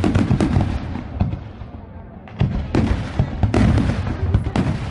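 Aerial shell fireworks going off in rapid volleys of bangs and crackles. The first volley fades over the first two seconds, and a second dense volley starts about halfway through.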